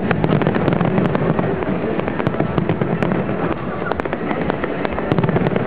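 Aerial firework shells bursting in a dense, continuous barrage of bangs and crackles.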